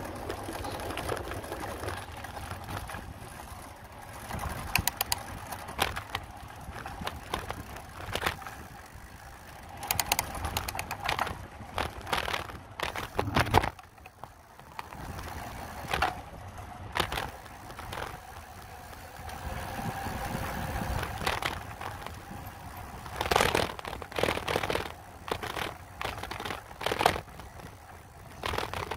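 Bicycle rolling over rough, cracked asphalt: a steady tyre rumble with frequent, irregular rattles and knocks as it hits bumps and patches.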